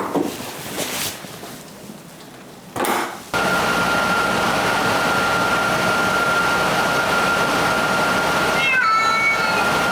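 A pet dryer switches on a few seconds in and runs with a steady rushing noise and a thin high whine. Near the end, a cat meows over it with a long, bending meow.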